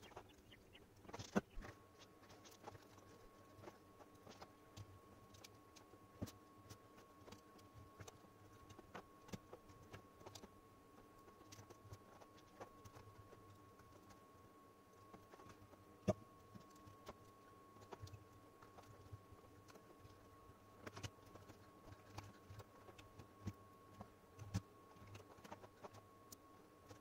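Near silence broken by faint, scattered clicks and taps of small parts being handled inside an opened laptop during reassembly: cable connectors, screws and covers being seated. A faint steady thin tone runs underneath from about two seconds in.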